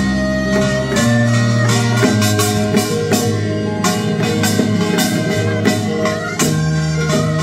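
Instrumental music: sustained pitched notes over a steady percussion beat.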